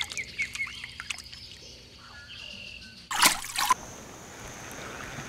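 Songbirds chirping in quick, falling calls for about the first second. About three seconds in comes a loud, half-second burst of rushing noise. Steady outdoor hiss with a faint high whine follows.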